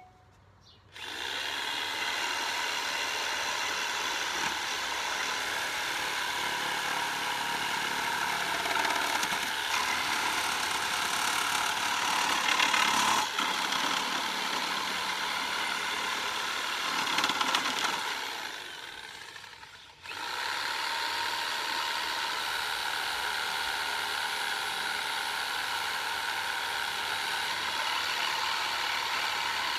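Reciprocating saw with a Bosch 10/14 TPI demolition blade running and cutting through pallet boards. It runs steadily, winds down and stops about two-thirds of the way through, then starts again at once and keeps cutting.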